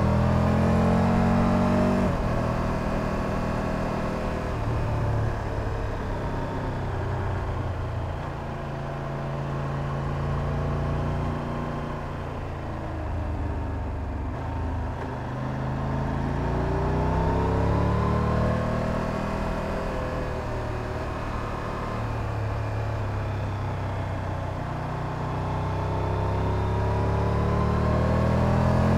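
Triumph Tiger 1200 Rally Pro's three-cylinder engine under way, its revs climbing and falling several times. One climb cuts off sharply about two seconds in, and longer climbs come in the second half and near the end. Wind and road noise run underneath.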